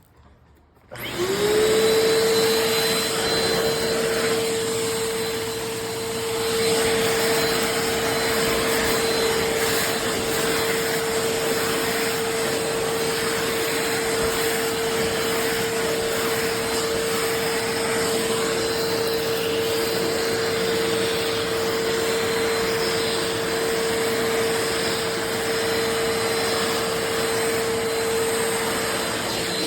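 Eureka NEU10AE4 bagless upright vacuum cleaner switched on about a second in, its motor spinning up quickly to a steady whine and running on with a loud rush of air.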